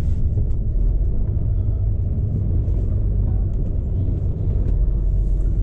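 Cab interior of a Volvo lorry on the move: a steady low diesel engine and road rumble.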